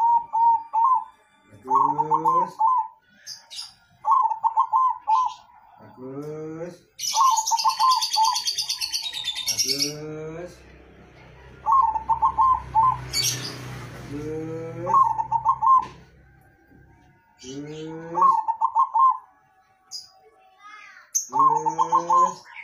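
Caged zebra dove (perkutut) cooing: a short phrase of quick clipped coos repeated every few seconds, about eight times.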